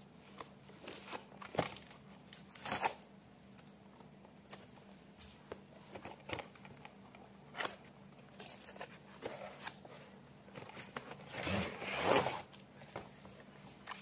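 A toy gun's cardboard box and packaging being handled and opened: scattered short rustles, crinkles and tearing, with a longer, louder rustle near the end as the toy comes out.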